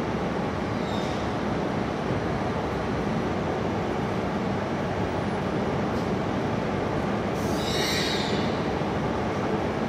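E6 series Shinkansen rolling slowly up to an E5 series train for coupling, giving a steady rumble. A brief high-pitched squeal lasting about a second comes a little past two-thirds of the way through.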